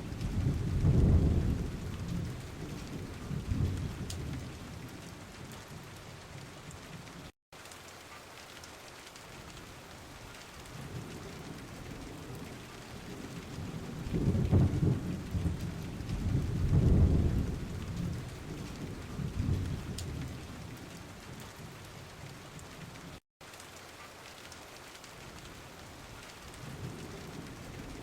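Steady rain falling, with rolling thunder rumbling low near the start and again in the middle. The sound drops out for an instant twice.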